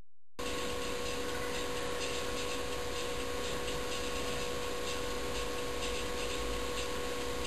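Steady hiss with a constant whining tone, the recording's own background noise, starting abruptly about half a second in, with faint rustles of a duvet being shaken out over a bed.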